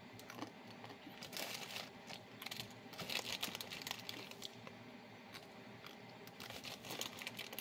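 Plastic wrapper of an instant ramen noodle packet crinkling in several short bursts as pieces of the dry noodle block are broken off and eaten.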